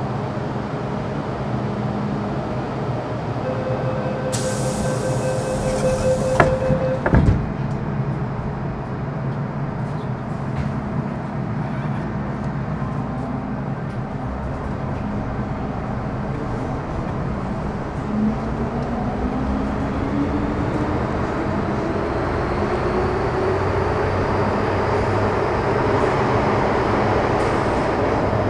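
Metro-Cammell M-Train electric multiple unit running through the tunnel, with a steady rumble of wheels on rail. A brief hiss and a held tone come about a fifth of the way in, followed by two sharp knocks. In the last third a tone rises steadily in pitch, in keeping with the GEC GTO chopper traction whine as the train gathers speed.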